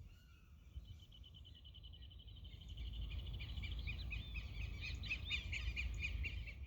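A songbird singing: a fast, even trill starts about a second in and gives way to louder, quicker chirping phrases. Under it runs a steady low rumble of wind on the microphone.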